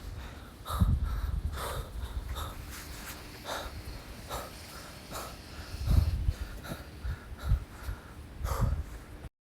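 A person breathing hard after a walk uphill, with short, noisy breaths about every second and some low thumps. The sound cuts off suddenly near the end.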